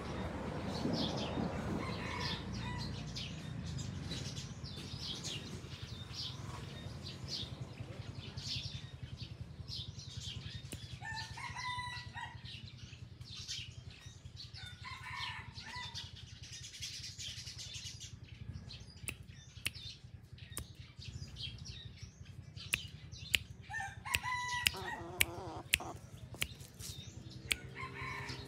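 Junglefowl rooster crowing in short crows, about four times, with small birds chirping in the background. A run of sharp clicks comes near the end.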